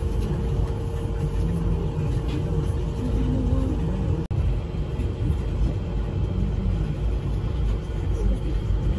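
Moscow monorail train running, heard from inside the carriage as a steady low rumble with a faint steady whine over it in the first few seconds. The sound cuts out for an instant about four seconds in.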